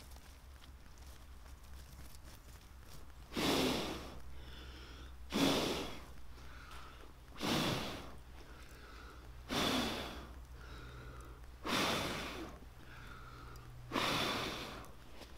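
A person blowing hard into a nest of brushwood buried in glowing embers to fan it into flame: six long blows about two seconds apart, starting about three seconds in, with a breath drawn in between each.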